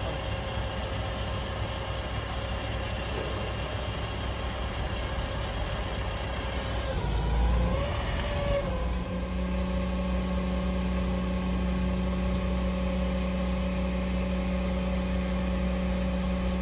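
Crane truck's engine running steadily; about eight seconds in it rises in speed and holds at the higher speed.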